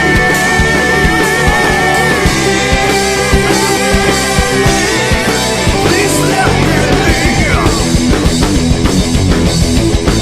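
Loud rock music with guitars and drums. About six seconds in, the bass gets heavier and the drumming denser, with a few gliding, squealing pitch sweeps.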